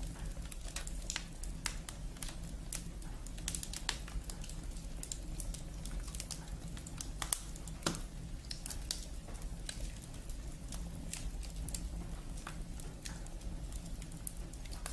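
Sound effect of a wood fire crackling: irregular sharp pops and snaps of burning logs over a low steady hum.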